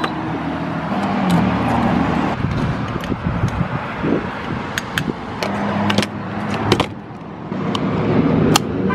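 Car being refuelled at a gas pump: the dispenser hums and fuel rushes through the nozzle into the filler neck, with scattered sharp clicks from handling the pump buttons, nozzle and fuel cap.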